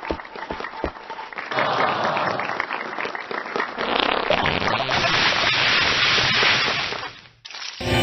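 Crowd clapping and cheering: scattered claps at first, swelling into dense applause about a second and a half in, then cutting off suddenly near the end.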